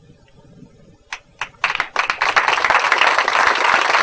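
Audience applauding: a couple of single claps about a second in, then from about one and a half seconds the applause fills in thick and keeps going.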